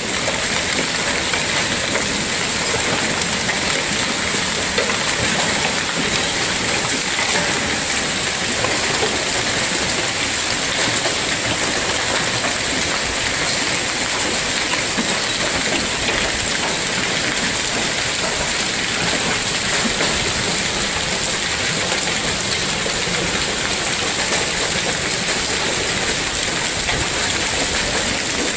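A hailstorm: heavy rain mixed with hail falling steadily onto a wet street, a dense unbroken hiss with no let-up.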